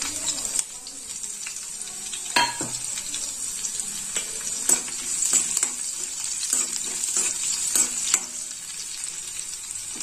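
Tadka of whole spices, green chilli and dried red chillies sizzling steadily in hot ghee in a metal kadhai, stirred with a steel spoon that clicks and knocks against the pan several times, loudest about two and a half seconds in.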